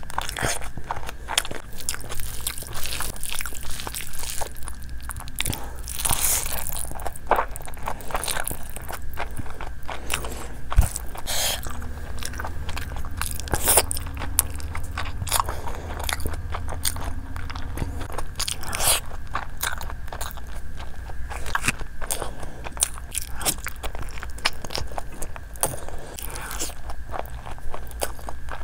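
A person chewing and biting into spicy chicken and Schezwan fried rice eaten by hand: a continuous run of short mouth clicks and crunches.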